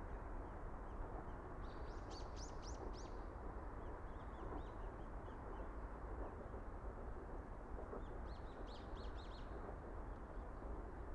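Small birds chirping in quick runs of high calls, once about two seconds in and again about eight seconds in, with a few softer chirps between, over a steady low background rumble.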